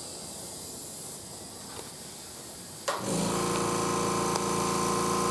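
Compressed air hissing into a tire being inflated to seat its beads, which are not yet seated; about three seconds in, an air compressor's motor clicks on and runs with a steady hum.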